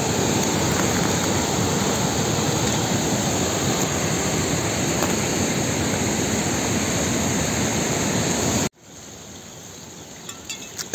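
Steady rush of a fast mountain stream running close by. It cuts off suddenly near the end and leaves a much quieter open-air background with a few faint ticks.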